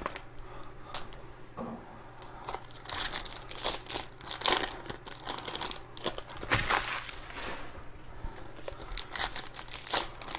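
Foil trading-card pack wrappers crinkling and tearing as packs are ripped open, with cards rustling in the hands. Irregular rustles and rips, several louder ones spread through.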